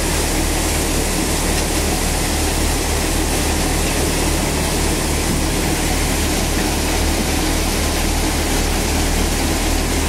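Malwa tokari thresher running steadily under load while threshing, an even, loud mechanical din with a steady low hum and no pauses.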